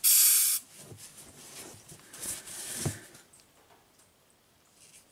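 An aerosol spray can hissing in a steady burst that cuts off sharply about half a second in. It is followed by faint rubbing and scraping on the tie rod and a single knock near the three-second mark.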